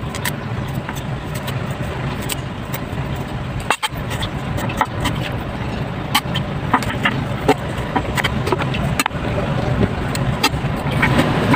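Cleaver chopping cabbage on a wooden chopping board: short, sharp knocks at an uneven pace. A steady low rumbling noise runs underneath.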